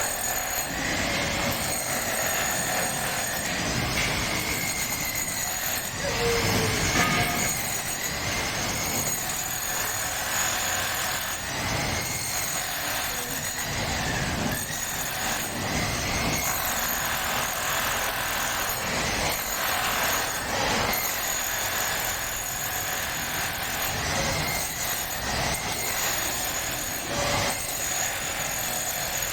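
Electric drill boring into a concrete floor, its motor tone dipping and recovering every second or two as it loads up.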